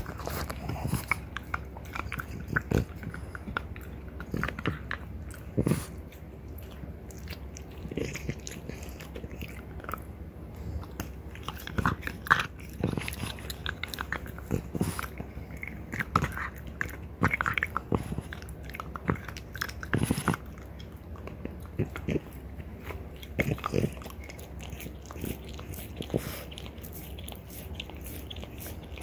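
French bulldog gnawing a deer antler: irregular hard crunches, scrapes and clicks of teeth grinding on the antler.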